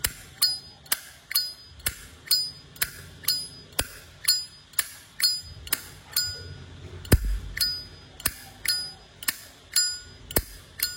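Polished-chrome 1998 Zippo lighter's hinged lid snapped open and shut over and over, a sharp metallic click about twice a second, many with a short high ring after. The lid's clean ring is what Zippo collectors call a good 'âm', the lighter's sound.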